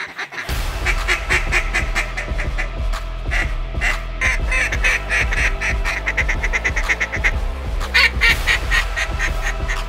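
A duck call blown by a hunter in long runs of quick quacks that crowd into a fast chatter, with a louder run near the end: calling to ducks circling overhead.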